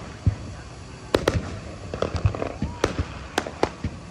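Aerial fireworks bursting: a string of sharp bangs and crackling pops at irregular intervals, several of them close together toward the end.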